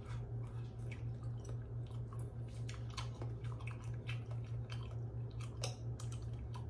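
A person chewing a mouthful of instant noodle soup with carrots, with many short, irregular wet mouth clicks. A steady low hum runs underneath.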